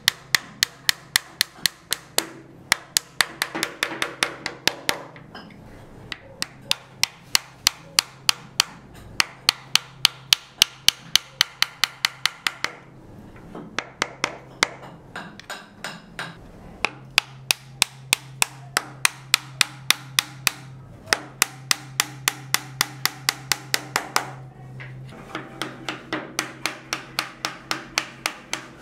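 Small hammer tapping on wood as kumiko lattice pieces are worked into place: quick light strikes, about four or five a second, with two short pauses.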